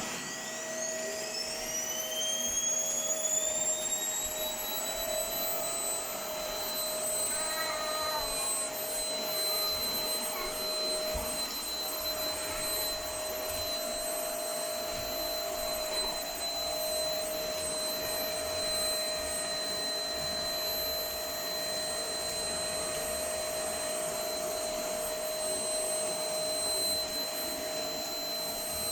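Household vacuum cleaner running steadily with a high motor whine. Its pitch climbs over the first few seconds as the motor comes up to speed.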